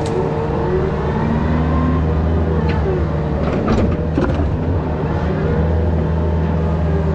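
Yanmar VIO50 mini excavator's diesel engine running under load, its hydraulic whine rising and falling as the controls are worked, with a few metal clanks about three to four seconds in.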